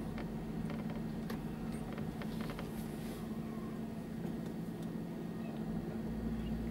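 Car engine running steadily at low speed, heard from inside the cabin as the car creeps forward, with a few light clicks and creaks in the first half.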